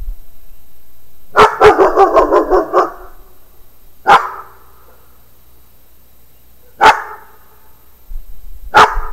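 A dog barking: a quick run of about eight barks, then three single barks a few seconds apart.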